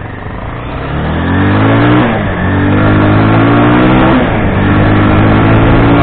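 Motorcycle engine pulling away and accelerating through the gears. Its pitch climbs, drops at a gear change about two seconds in, climbs again, drops at a second change about four seconds in, then climbs once more.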